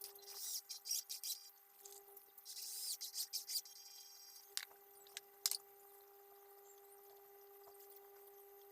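Faint clicking and rattling for the first few seconds, then two sharp clicks, over a steady faint hum.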